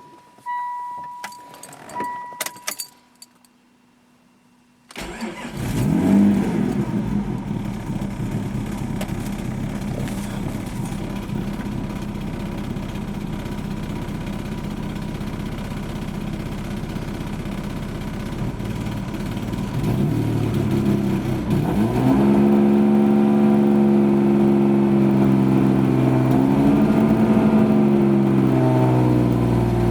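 Chime beeps and clicks, then a Ford Probe GT's KL-ZE 2.5-litre V6 cranks and catches about five seconds in. It settles into an uneven idle whose pitch wanders up and down, and picks up speed about twenty-two seconds in. The owner hears a misfire and erratic idle and wonders whether it is a vacuum leak.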